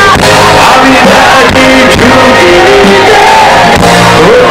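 Live rock band with a male lead singer, playing loud through the stage sound system.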